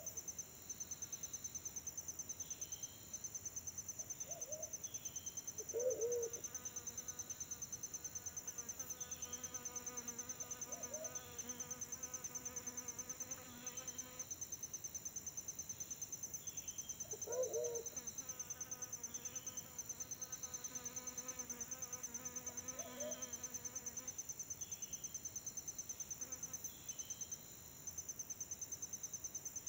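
Pigeons cooing, deep hoot-like coos every few seconds, the loudest about six and seventeen seconds in, over a steady, fast-pulsing insect trill. A low steady hum comes and goes twice, several seconds each time.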